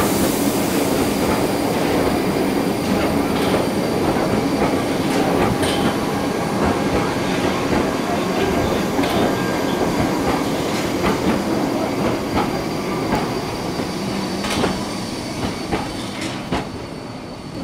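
Wengernalp rack railway train running: a steady rumble with scattered wheel clicks and a faint high whine, getting slightly quieter near the end.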